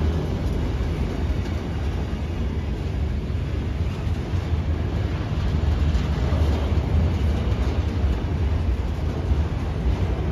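Autorack freight cars rolling past on the rails with a steady low rumble.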